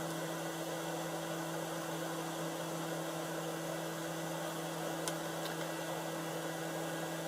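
A small electric fan or blower running steadily, a whirring hiss over a low hum, with a faint tick about five seconds in.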